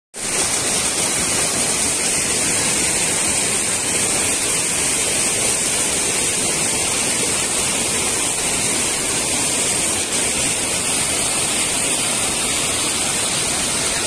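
A rocky stream rushing and splashing over boulders in small cascades, a steady loud rush of water.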